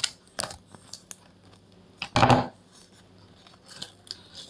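Scissors snipping through a paper packet, a couple of short sharp cuts near the start, with paper handling and a louder half-second burst of noise about two seconds in.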